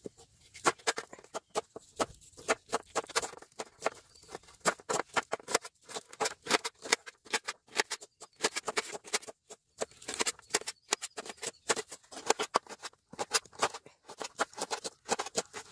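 Kitchen knife chopping green chillies on an aluminium plate: quick, irregular taps of the blade against the metal, a few a second. Near the end the knife is slicing onion on a small wooden board.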